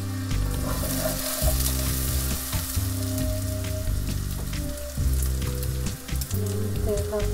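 Food sizzling as it fries in hot oil in a pan, with a utensil stirring and clicking against the pan now and then.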